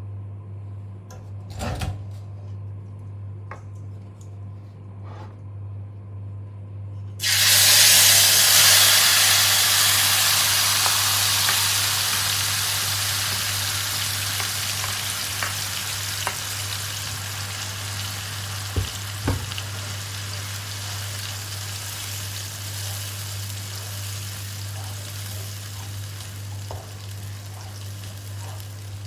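Ingredients hit hot oil in a wok about seven seconds in, starting a loud frying sizzle that slowly fades to a steady sizzle. Two short knocks come just past the middle.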